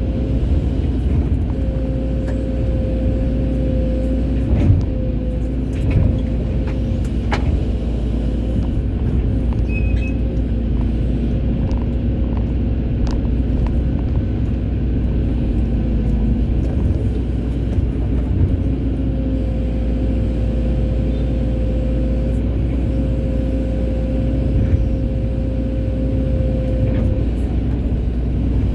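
Excavator's diesel engine running steadily under working load, with a steady hydraulic whine and a few short knocks in the first several seconds.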